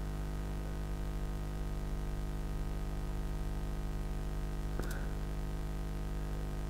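Steady low electrical hum from the recording setup, a buzz with many evenly spaced overtones. A single mouse click sounds a little under five seconds in.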